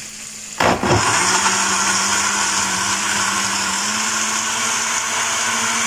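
Black+Decker countertop blender switching on about half a second in and running steadily, puréeing tomato, onion, chile and water into a sauce. Its motor hum rises slightly partway through, and it cuts off suddenly near the end.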